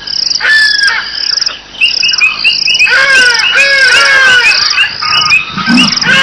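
Crickets chirping in a steady run of short high pulses while a bird calls over and over in falling, arching notes. Near the end a low, rasping call starts, about two strokes a second: the sawing call of a leopard.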